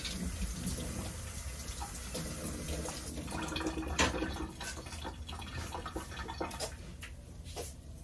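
Kitchen tap running into a stainless-steel sink, with scattered clinks and knocks of dishes and utensils, the sharpest about four seconds in.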